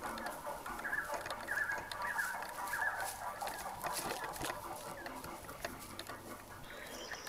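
Footsteps crunching through dry leaf litter, with a repeated short, pitched calling sound over them, like clucking.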